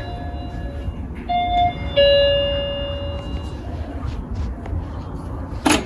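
Doorbell chime playing a short run of notes, the last and lowest ringing out for about a second and a half. A sharp click near the end.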